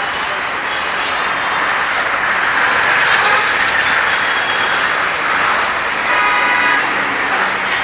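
Road traffic noise from passing vehicles, with a vehicle horn honking briefly about six seconds in.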